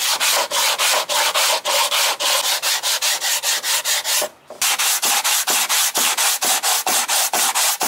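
Hand sanding block with sandpaper rubbed back and forth over a bumper cover piece in quick even strokes, about five a second, with a short pause a little past halfway.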